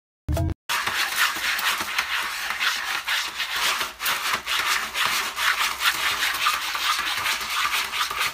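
Cat digging in a litter tray of long pellet litter, its paws scraping and scattering the pellets in quick, continuous scratching strokes.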